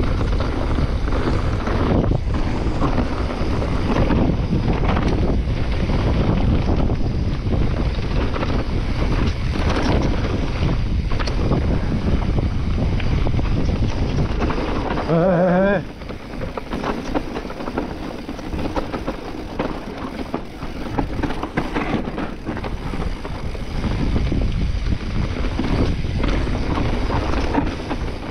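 Mountain bike riding fast down a dirt forest trail: heavy wind buffeting on the microphone over the rattle and knocks of the bike and its tyres on dirt and leaves. About halfway a short wavering pitched sound, after which the wind noise eases for a while before building again.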